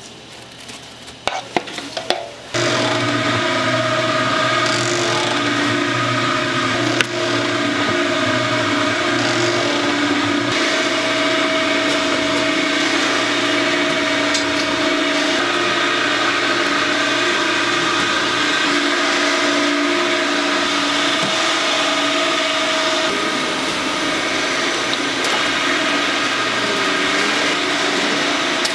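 Fish cake making machinery starts running abruptly about two and a half seconds in, after a few clicks, then runs steadily with a motor whine over a hiss.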